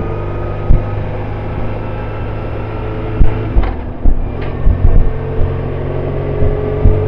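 BMW R1150RT's boxer twin engine running as the motorcycle rides along, with wind rumble and low thumps of buffeting on the microphone. The engine note drops away briefly a little past halfway, then comes back and climbs slowly.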